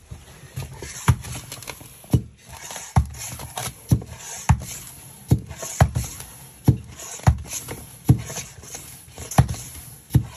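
Hand floor pump with a pressure gauge being pumped in steady strokes, about one every three-quarters of a second, each ending in a short knock. It is recharging the air side of a flat heating-system expansion vessel towards 1 bar.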